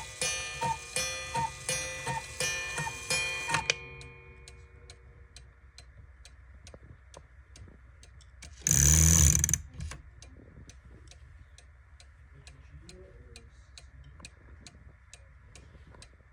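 Cuckoo clock's music box playing a plinking tune that ends about four seconds in, leaving the clock movement ticking steadily, about two to three ticks a second. A loud rushing noise lasting about a second cuts in near the middle.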